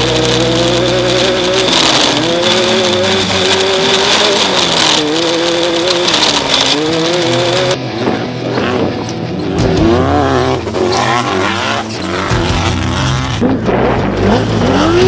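Off-road race cars' engines running hard, their pitch rising and falling as they accelerate and ease off, over a wide rushing noise. The sound changes abruptly about halfway through.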